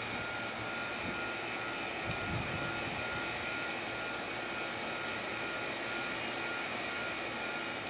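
Nishitetsu 3000 series electric train standing still, its onboard equipment giving a steady drone with a faint high steady whine.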